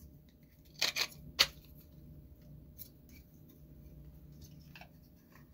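A few sharp clicks and taps from a clear plastic eyelash box being handled: three in the first second and a half, then a few fainter ticks.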